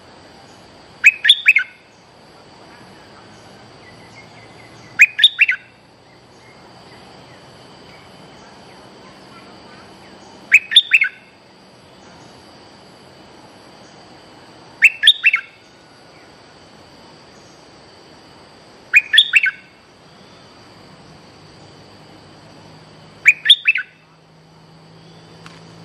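Bulbul (merbah) calling: a short, bright phrase of two or three quick notes, repeated six times about every four seconds.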